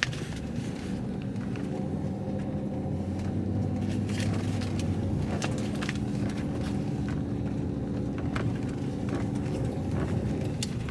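Shuttle vehicle's engine running steadily, heard from inside the cabin while driving, its pitch shifting slightly about three seconds in. A few light clicks or rattles are heard over it.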